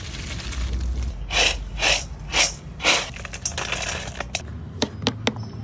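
Four scraping strokes in a metal cooking pan, about two a second, then roasted peanuts trickling from a hand into a stainless steel bowl, with a few sharp clicks against the metal near the end.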